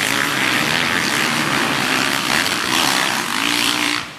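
Motocross bikes racing along a dirt track at high revs, a loud buzzing engine note with one engine rising in pitch near the end; the sound drops off sharply about four seconds in.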